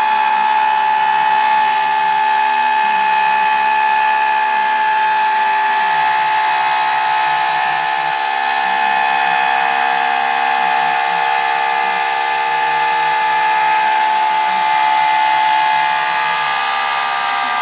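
Homemade CNC machine running, a steady high-pitched motor whine with a wavering low hum beneath it.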